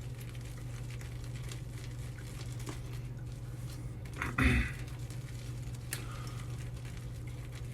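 Shaving brush working soap lather on a face: soft wet squishing and fine crackling, over a steady low hum. A short louder noise comes a little past halfway.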